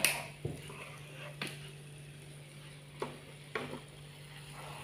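Kwetiau noodles being stir-fried in a frying pan with a faint sizzle, as a spatula stirs them and scrapes and knocks against the pan several times.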